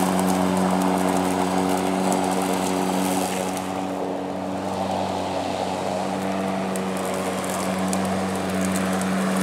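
EGO 56-volt self-propelled electric lawn mower running with its blade spinning: a steady, pitched motor hum. It grows a little quieter about four seconds in as the mower moves away, then louder again as it comes back.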